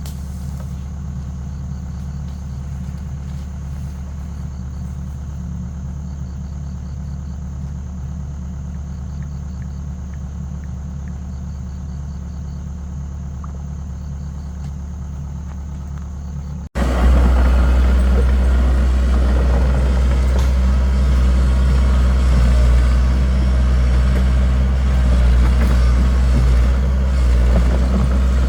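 An engine running steadily with a low, even hum. A little over halfway in it cuts abruptly to a louder, rougher engine run.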